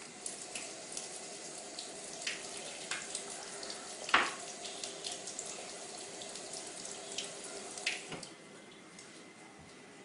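Kitchen faucet running into the sink while paintbrushes are rinsed under it, with a few small knocks and one louder clack about four seconds in. The water shuts off about eight seconds in.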